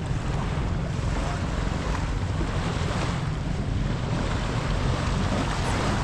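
Wind buffeting the microphone over a steady wash of surf on a beach.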